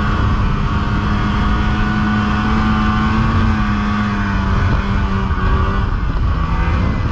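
Polaris snowmobile engine running steadily under the rider at cruising speed. Its note wavers slightly up and down, over a dense low rumble.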